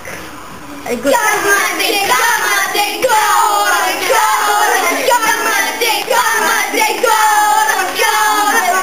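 A group of children chanting a haka together, loud rhythmic phrases about once a second, starting about a second in.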